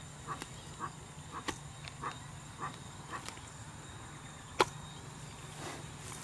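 A hoe chopping into wet mud and soil, with sharp knocks at each strike; the loudest comes about four and a half seconds in. A short animal call repeats about twice a second through the first three seconds.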